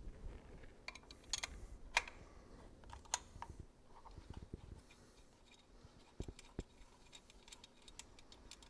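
Scattered light metallic clicks and taps of hand tools on a motorcycle's main engine-mount bolt as it is loosened: a few sharper clicks in the first three seconds, then a run of fainter, irregular ticks.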